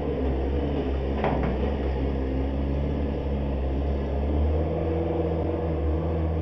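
An engine running steadily nearby, a loud, even, low drone. A brief higher squeak sounds about a second in.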